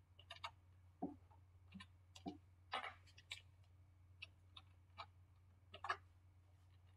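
Faint, irregular clicks of computer keyboard keys being typed, over a low steady hum.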